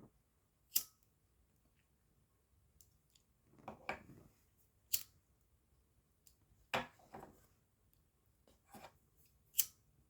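Tarot cards being shuffled and handled: about six sharp card snaps and flicks spread over several seconds, a couple of them doubled.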